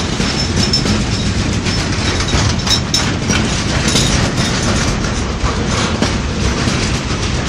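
Freight wagons loaded with steel coils rolling past close by: a steady rumble of steel wheels on the rails with a clickety-clack over the rail joints.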